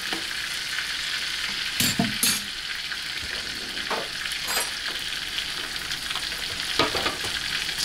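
Ribeye steak frying in a hot pan of butter and oil: a steady sizzle, with a few brief light knocks about two, four and seven seconds in.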